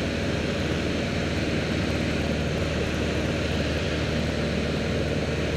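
Piper Archer II's four-cylinder Lycoming O-360 engine and propeller droning steadily in flight, heard from inside the cockpit.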